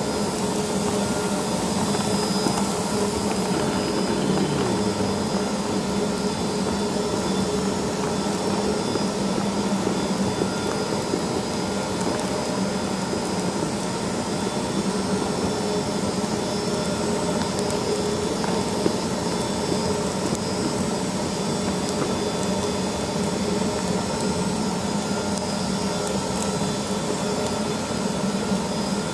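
HTC 650 RX concrete floor grinder running steadily while grinding a concrete floor, a constant whine and hum over a rushing noise from the grinding heads and dust extraction.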